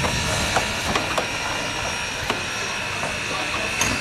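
Narrow-gauge steam locomotive 83-180 standing with a steady hiss of steam, broken by a few short, sharp knocks.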